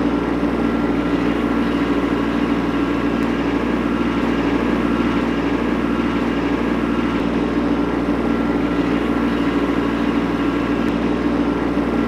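Kubota B2601 compact tractor's three-cylinder diesel engine running steadily as the tractor drives along, carrying a three-point-hitch wood chipper.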